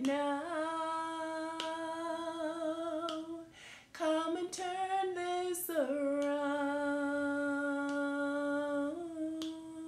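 A woman singing a worship chorus unaccompanied, drawing out long held notes: one for about three and a half seconds, then a short rising phrase, then another held for about four seconds.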